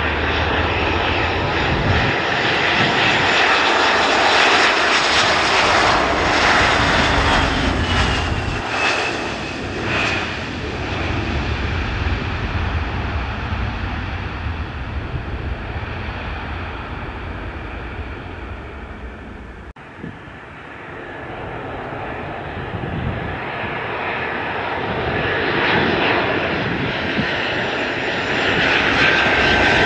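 Airliner engines passing close, the noise swelling and then fading, with a whine falling in pitch over the first ten seconds. After a sudden break about two-thirds of the way through, the aircraft noise builds again toward the end.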